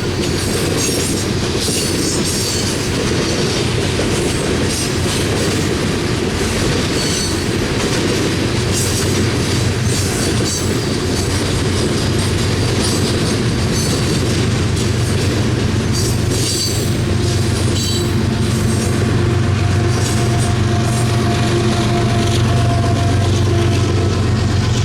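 Coal train cars rolling past at speed, the wheels clicking over the rail joints, with brief high wheel squeals now and then. From about two-thirds of the way in, a steady low drone slowly grows louder under the rolling noise.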